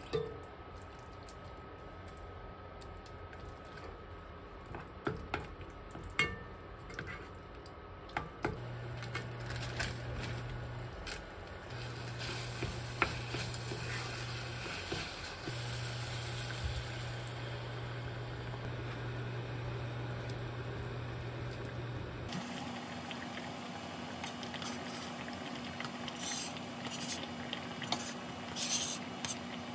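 A gangdoenjang base sizzling in an enamel pot as it is stirred with a spatula, with light scrapes and taps against the pot and a low hum that comes and goes in the middle. Near the end, chopped vegetables are scraped off a cutting board with a knife into the pot.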